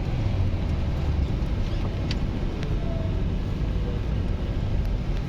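Strong blizzard wind buffeting the microphone: a loud, steady, low rumble with a couple of faint clicks about two seconds in.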